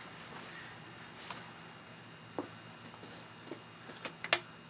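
Steady high-pitched chirring of crickets, with a few faint light taps from metal tools.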